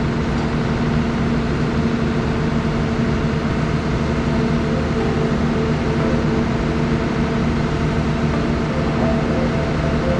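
Diesel engine of a JCB JS220 tracked excavator running steadily at constant revs while holding a suspended load on its bucket.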